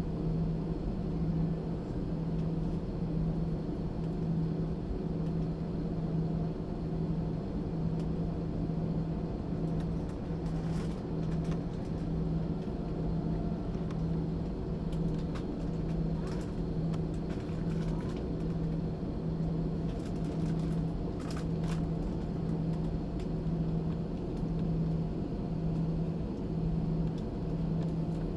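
Airbus A320 cabin engine noise: a steady jet drone with a low hum that swells and fades at a regular slow beat.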